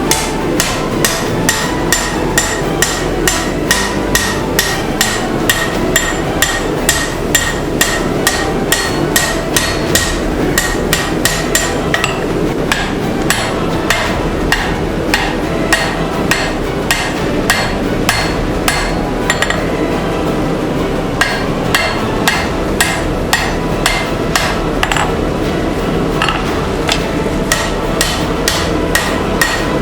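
Hand-forging hammer blows on steel at the anvil, about two strikes a second, each with a short metallic ring, with a few brief pauses. A steady noise runs underneath.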